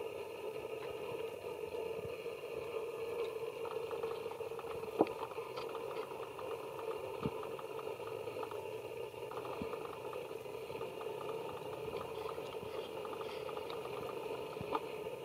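A steady motor hum, with a couple of sharp clicks about five and seven seconds in.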